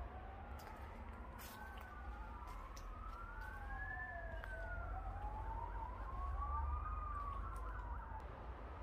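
Emergency vehicle sirens wailing, two overlapping tones that slowly rise and fall over each other, over a low steady rumble.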